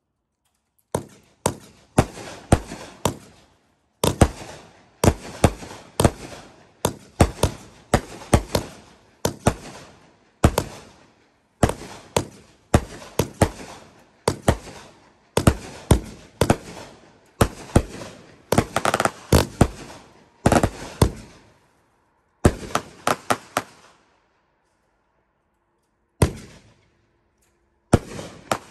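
Consumer aerial fireworks firing in rapid succession: a long run of sharp reports, two or three a second, as shots lift and burst, with a brief pause near the end before the firing picks up again.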